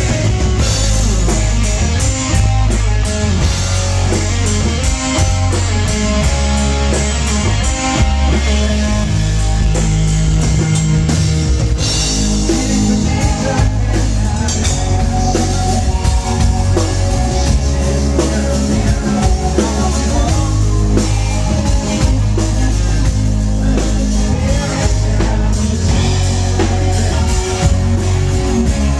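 Live rock band playing loud: electric guitars, bass and drum kit, through a stage sound system.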